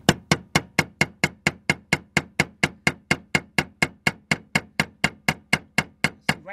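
Hammer striking a pry bar set against the fuel pump lock ring on the fuel tank, a long even run of sharp metal taps about four a second, driving the ring tight to seal the new O-ring.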